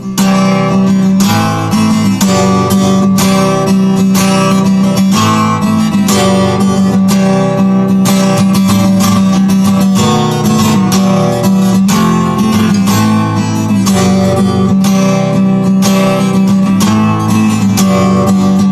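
Acoustic guitar strumming chords in a steady rhythm: the instrumental intro of a song, before the singing comes in.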